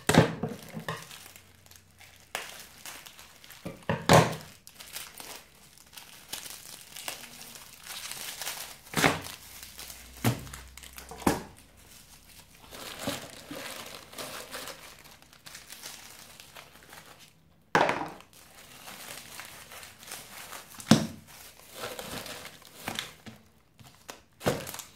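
Plastic shrink-wrap crinkling and tearing as it is stripped off a stack of Magic: The Gathering booster packs, with the packs handled and set down in several sharp knocks.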